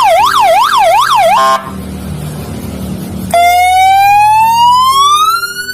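A 12-volt three-tone electronic siren horn blaring through its horn speaker. It gives a fast up-and-down yelp for about a second and a half, then after a pause a slow wail that climbs steadily in pitch and cuts off near the end.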